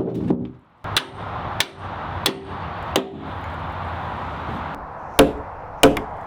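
Hammer blows during bridge deck work: four strikes about two-thirds of a second apart, then two more after a pause, each with a short ring.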